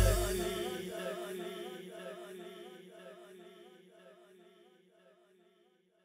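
The end of a song fading out: a held, wavering vocal note over a steady drone dies away to silence within about four seconds.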